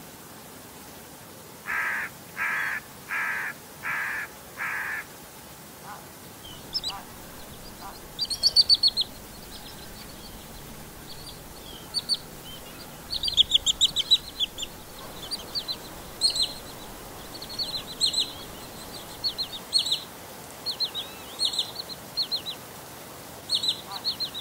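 Wood sandpiper calls and flight calls. First come five evenly spaced mid-pitched call notes. Then, from about seven seconds in, short runs of quick, high-pitched notes repeat about once a second, over a steady faint hiss.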